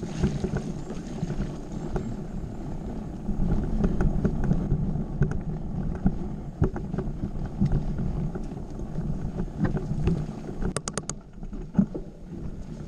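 Mountain bike riding over a rough forest singletrack, heard from the camera on the moving bike: steady rumble of wind and tyres, with scattered knocks and rattles from the bike over roots and ruts. A quick run of about four sharp clicks comes near the end.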